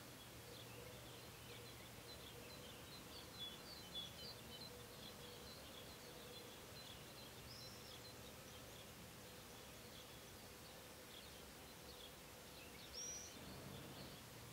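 Faint outdoor ambience of small songbirds chirping at a high pitch, with two louder curving calls, one in the middle and one near the end, over a steady low hum.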